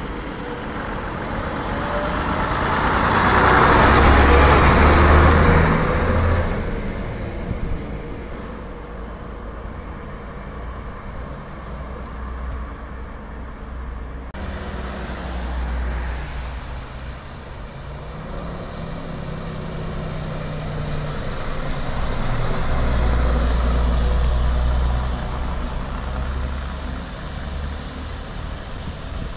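Diesel engines of vintage AEC London double-deck buses running as the buses pull past and away in traffic. The engine note is loudest about four seconds in and again near the end. Around the middle its pitch falls and then rises again.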